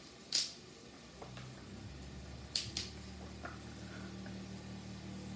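Asparagus spears being snapped by hand, a crisp crack at each break where the woody stalk end gives way: one about half a second in, then two in quick succession near the middle. Under the snaps runs a faint, low, steady hum.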